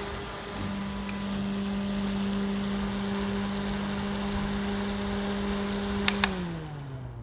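Mini desk fan running with a steady motor hum and a rush of air. About six seconds in, two quick clicks of its switch, then the motor winds down with a falling hum as it is switched off.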